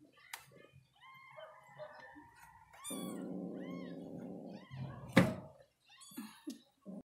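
Newborn kittens mewing with short, thin, high-pitched cries, with one longer, lower cry in the middle. A single sharp thump about five seconds in is the loudest sound.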